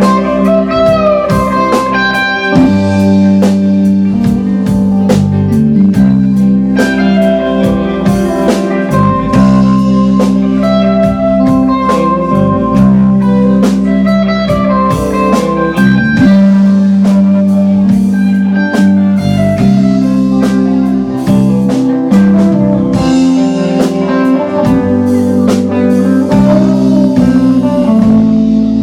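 Live band playing: electric guitars through amplifiers over a drum kit, a lead guitar line with bending, sliding notes above the strummed chords.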